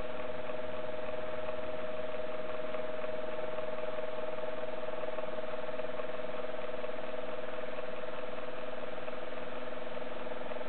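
Small electric motor running with a steady, unchanging mid-pitched hum over a faint hiss.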